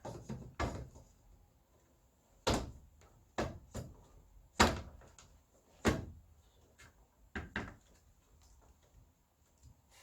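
Retractable baby safety gate being pulled across and latched into its wall fittings: a string of separate sharp plastic knocks and clicks, the loudest about halfway through, as it is tried for a proper catch.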